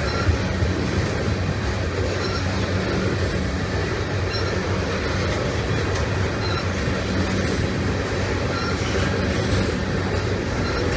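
Freight train of tank cars rolling steadily past: a continuous rumble of steel wheels on the rails, with a few faint, brief squeaks now and then.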